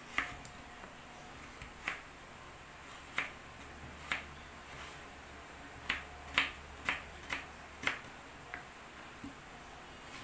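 Kitchen knife cutting a raw peeled potato into pieces, each stroke ending in a sharp tap on a plastic cutting board. About ten taps at uneven intervals, coming quicker and closer together a little past the middle.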